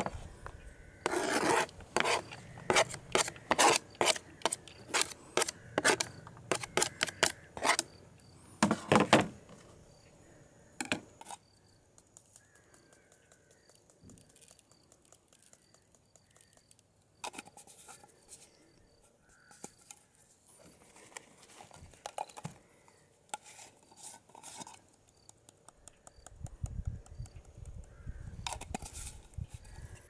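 Kitchen knife scraping and tapping chopped garlic off a plastic cutting board into a bowl, a quick run of scrapes and clicks for about ten seconds, then a few scattered handling sounds.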